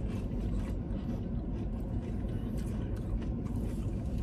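Steady low hum inside a parked car, with faint small ticks and rustles of people eating.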